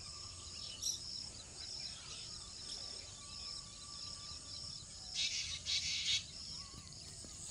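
Rural outdoor ambience of steady high-pitched insect chirring, like crickets, with a faint bird call; about five to six seconds in, a few louder bursts of high chirring stand out.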